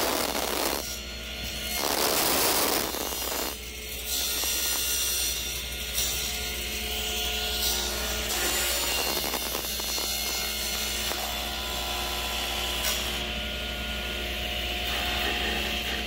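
Plastic laminate sheet being cut: two loud, noisy cutting passes of about a second and a half each in the first few seconds, then a steadier low background with a few light clicks.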